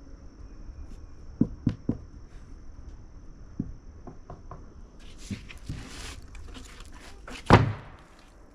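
Footsteps and scattered knocks, three in quick succession about a second and a half in, then a rustling scrape and one loud thump near the end.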